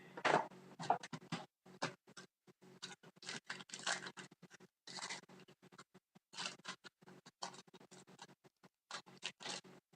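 Trading card packaging and cards being handled: irregular short rustles, crinkles and scrapes of wrapper and card stock.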